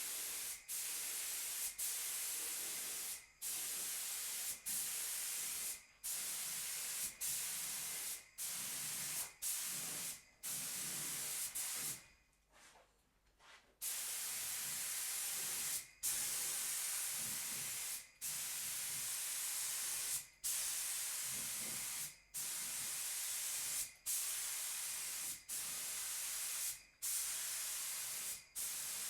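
Compressed-air paint spray gun spraying, a steady high hiss in passes a second or two long, each broken by a brief stop of the trigger. About twelve seconds in there is a longer pause of some two seconds.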